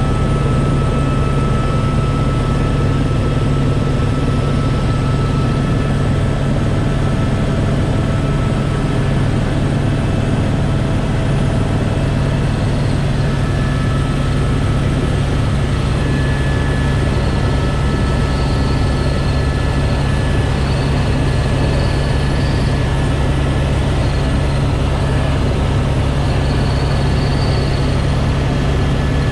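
Helicopter engine and rotor running with a steady drone, heard from inside the cabin.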